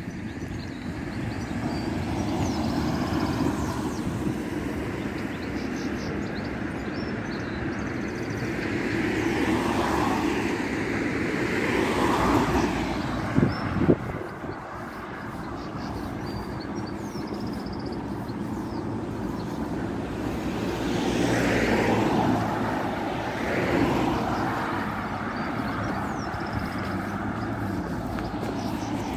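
Road traffic passing by, with cars swelling past one after another over a steady rumble. About halfway through there are two sharp knocks close together.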